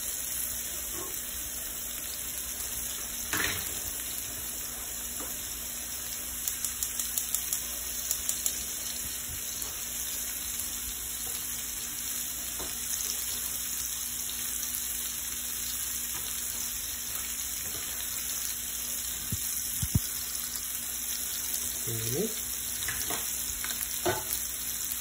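Cubes of tuna and white fish searing in a frying pan: a steady sizzle, with a quick run of light clicks about seven seconds in and a few single knocks near the end.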